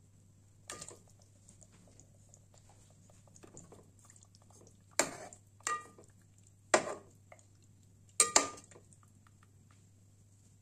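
A steel cup knocking against a steel pot of fish in water: about six sharp clinks with a short metallic ring, most of them in the second half.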